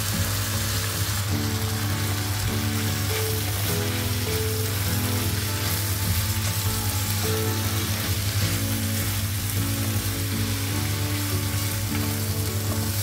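Vegetables sizzling steadily in a hot frying pan, with soy sauce poured in at the start, and then stirred with a wooden spatula.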